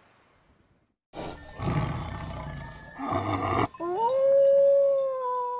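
A rough animal growl in two bursts, then a grey wolf howl that rises and then holds one long, even note.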